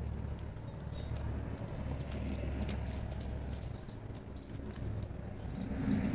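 Rural garden ambience: a steady high insect drone, with a short high chirp repeating about every two-thirds of a second, over a low rumble.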